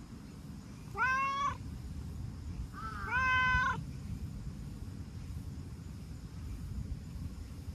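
Brown tabby-and-white cat meowing twice, two short calls about two seconds apart, the second a little longer.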